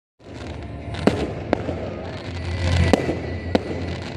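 Aerial fireworks shells bursting in the sky: four sharp bangs, unevenly spaced between half a second and a second and a half apart, over a steady low rumble.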